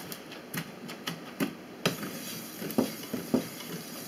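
Wooden pestle working crushed pokeberries in a cone-shaped metal ricer: a string of irregular knocks and taps of wood against the perforated metal cone.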